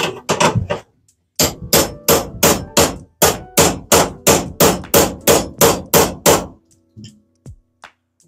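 Hammer beating bent metal back into shape: a quick run of sharp metallic blows, about four a second, with a short break about a second in and the blows stopping about six and a half seconds in.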